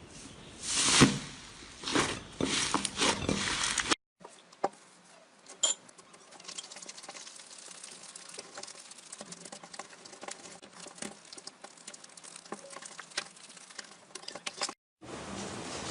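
Slime being squeezed and pressed by hand: loud crackly squishes for the first four seconds, then, after a cut, a long quieter run of small clicks and pops.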